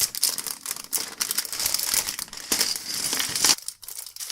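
Thin plastic LEGO polybag crinkling as it is handled and opened, with small crackles, until it drops away to quieter rustling about three and a half seconds in.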